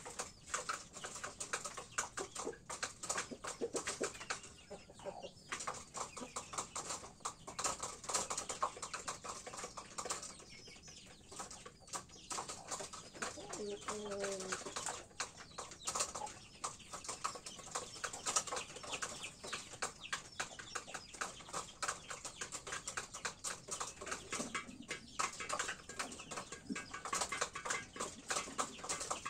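Chickens in a pen: dense, irregular ticking of a rooster's beak pecking feed from a shallow metal tray. A single short cluck comes about halfway through.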